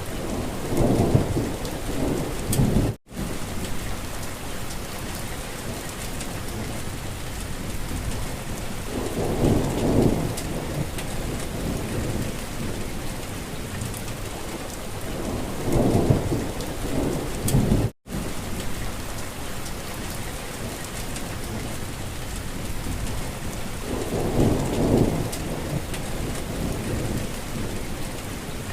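Steady rain hissing, with a low rumble swelling up and fading four times, like distant thunder. The sound cuts out for an instant twice.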